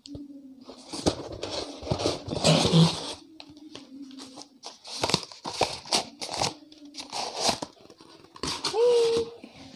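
Cardboard gift box and its packaging being handled and unpacked: irregular rustling, scraping and crinkling of cardboard. Near the end, a short pitched sound that rises and then holds steady.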